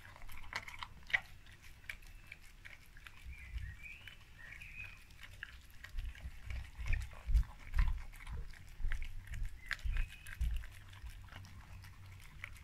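A Labrador mix dog eating a soft rice-and-vegetable mash from a stainless steel bowl: wet smacking, lapping and chewing in quick irregular clicks. A run of louder low thuds comes between about six and eleven seconds in.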